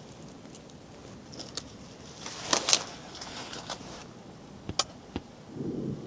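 Metal chopsticks clicking and scraping against a pan of ramen as the noodles and seasoning are stirred, over a low steady background. A few sharp clicks and short rustles; the loudest come about two and a half seconds in.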